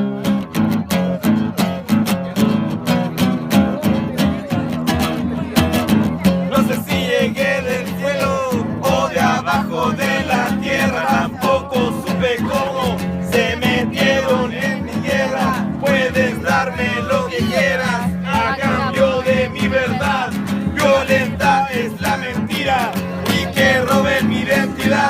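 Music: strummed guitar chords with a bending melodic lead line over them, the instrumental intro of a Spanish-language song.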